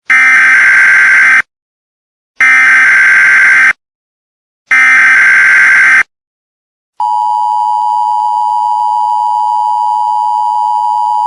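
Emergency Alert System SAME header: three loud bursts of data tones, each about a second and a half long, with short silences between them. About seven seconds in, the steady two-tone EAS attention signal begins, a little quieter than the bursts.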